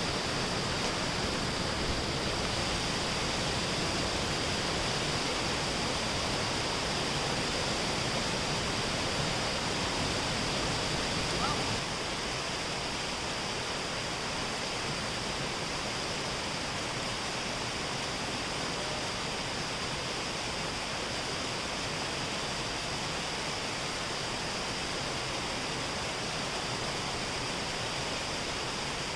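Kunool waterfall, a multi-step mountain waterfall, falling with a steady, even rush of water that is loud enough to drown out a voice. The level drops slightly about twelve seconds in.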